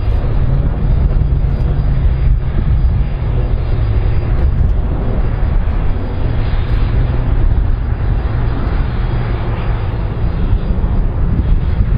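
An Airbus A310-304 airliner's twin General Electric CF6-80C2 turbofan engines running as it rolls along the runway, heard as a steady, loud jet rumble that is heaviest in the low end.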